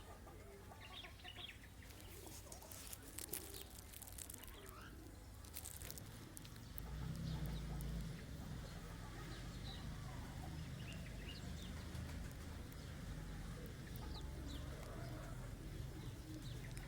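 Faint outdoor ambience of scattered bird calls, with a few soft rustles in the first seconds and a low rumble that swells from about seven seconds in.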